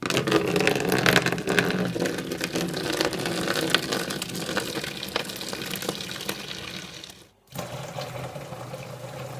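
A toilet flushing: a sudden rush of water that slowly dies away. After a break of about a quarter second, a kitchen mixer tap runs into a stainless steel sink.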